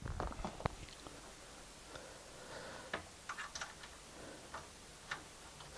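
A handful of faint, scattered clicks and light handling noises from oscilloscope probe leads and their connectors being picked up and moved about.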